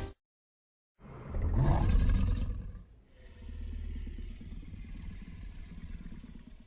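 Dinosaur creature sound effects: a short growl about a second in, then a long, low, rumbling growl.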